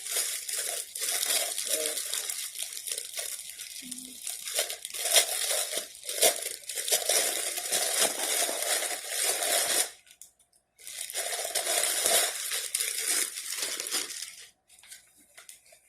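Packaging crinkling and rustling as a package is unwrapped by hand, in irregular handling strokes with a short pause about ten seconds in.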